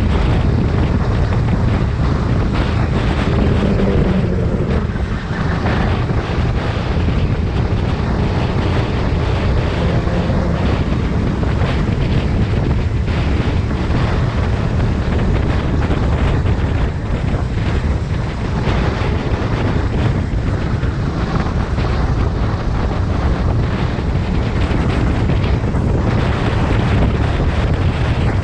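Onboard sound of a Sodi rental kart racing flat out: its engine running steadily under heavy wind noise on the mounted camera's microphone.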